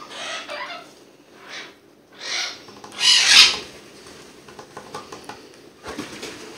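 A young parrot giving harsh, raspy calls, about four of them, the loudest a little after three seconds in, followed by faint rustling.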